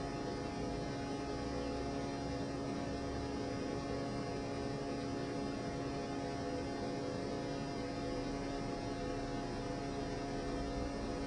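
Steady electrical hum with a faint hiss underneath, unchanging throughout, with no other distinct sound.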